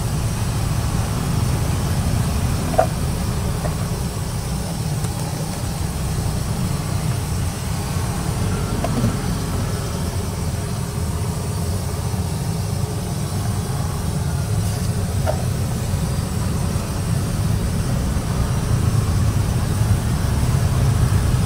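Gas burner under a large steel wok running with a steady low rumble while the red capcay sauce heats, with a few faint clicks.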